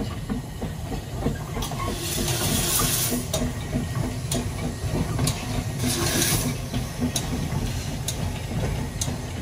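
Narrow-gauge steam tank locomotive No. 7 'Tom Rolt' moving slowly past with its train, with a steady low rumble. Steam hisses in two long surges, about two seconds in and about six seconds in. Scattered sharp clicks come from the wheels as the coaches roll by.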